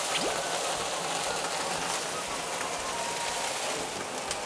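Shrimp and vegetables sizzling in a hot wok as Chinese cooking wine is poured in: a steady hiss that eases slightly near the end.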